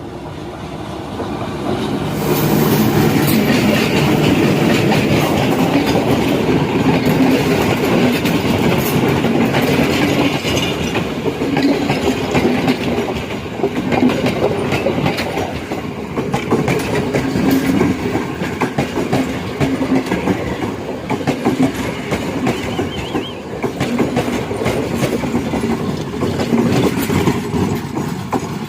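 Diesel-hauled express train running close by: the locomotive's engine hum builds over the first couple of seconds, then the carriage wheels clatter rhythmically over the rail joints until the sound drops away at the end.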